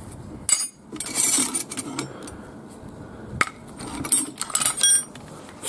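Steel wrenches and sockets clinking and rattling against each other as a hand rummages through a pile of hand tools, with several sharp metallic clinks that ring briefly.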